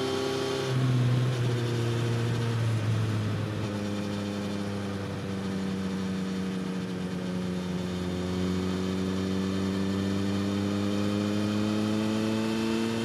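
Suzuki GSX-S1000's inline-four engine through a slip-on exhaust, running hard: the revs climb, drop sharply just under a second in, then sag slowly through the middle before climbing steadily again toward the end.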